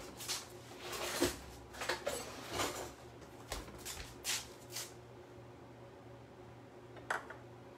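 Light knocks and clatter of kitchen items being handled and set down on a countertop, several in the first few seconds and one more near the end, over a faint steady hum.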